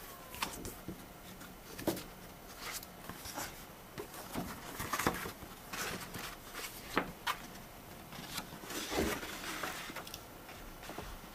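Large folded paper game maps rustling and crackling as they are handled and unfolded, with irregular sharp crinkles among softer rustles.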